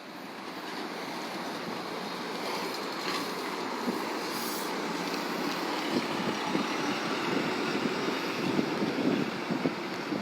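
Vehicle noise at a bus terminal, a steady rush that grows slowly louder, with wind buffeting the microphone in irregular gusts in the second half.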